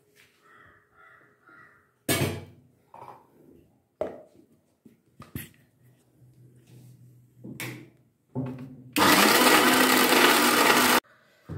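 A few clunks and knocks as the steel mixer-grinder jar and lid are fitted and set on the base, then the mixer grinder runs loudly and steadily for about two seconds and stops abruptly, grinding a wet coriander and roasted-gram chutney to a paste.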